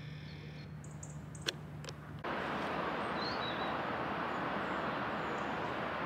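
Steady outdoor background noise, an even rushing hiss that starts abruptly about two seconds in, with a faint bird chirp a second later. Before it, a quiet steady hum with two light clicks.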